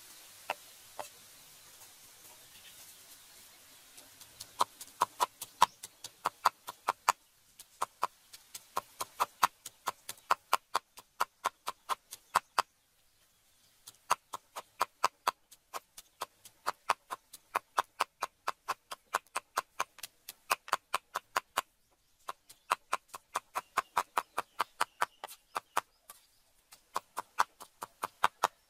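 Heavy cleaver mincing pork and snail meat on a round wooden chopping block: rapid, even knocks of the blade into the wood, several a second. They start about four seconds in and come in runs broken by short pauses.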